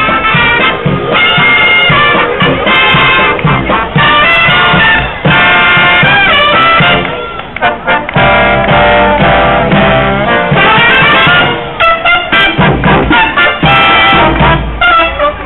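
Marching brass band playing: trumpets, trombones and sousaphones holding bright sustained notes over a drum, with a brief break about halfway and shorter, clipped notes near the end.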